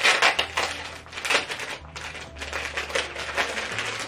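Crinkly plastic packaging rustling and crackling as it is handled, in a string of short bursts.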